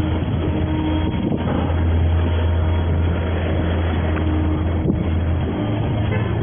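Tow truck driving, heard from inside the cab: a steady low engine drone over road and wind noise, which steps up slightly in pitch about five and a half seconds in.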